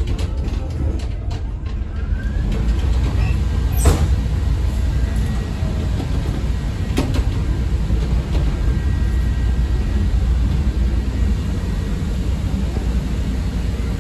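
Inside a moving CTA 5000-series rapid-transit car: a steady low rumble of the wheels and running gear on the track, with two sharp clicks about four and seven seconds in.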